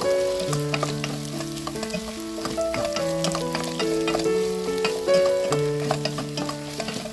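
Food sizzling and frying in a pan, with sharp clicks of a utensil stirring it, under soft background music of slow held notes.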